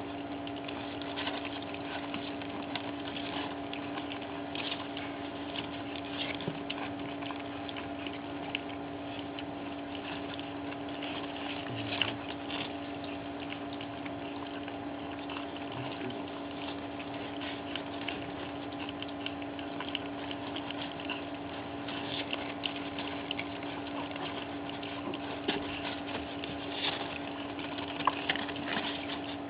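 Several pug puppies lapping and smacking at soft weaning food in a shared bowl: a busy, irregular stream of small wet clicks and slurps, with a couple of louder clicks. A steady low hum runs underneath.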